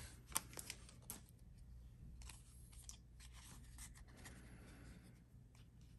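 Faint handling of a stack of baseball trading cards: soft flicks and sliding of card stock as the cards are leafed through one by one, with a few light clicks in the first second and again about two seconds in.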